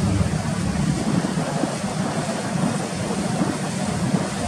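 Strong wind blowing across the microphone over the noise of a rough, choppy sea, with a low rumble of wind buffeting that eases about a second in.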